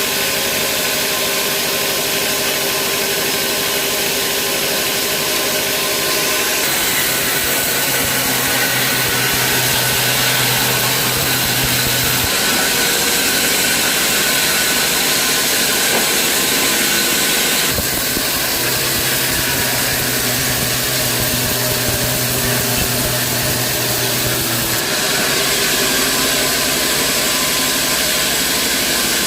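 Vertical band saw and sawmill machinery running loudly and steadily, with a rushing hiss over a low hum. The hum and hiss shift about every six seconds.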